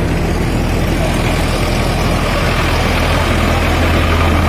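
Tractor engine running steadily with a deep, even hum, growing a little louder toward the end as the tractor comes closer.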